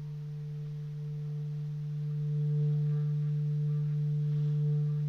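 Background music: one low note held steadily, swelling a little midway.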